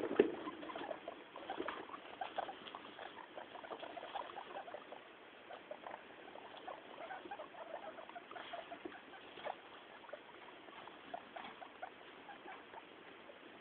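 Guinea pigs rummaging in straw bedding: a scattered patter of rustles and small clicks, busiest and loudest in the first few seconds.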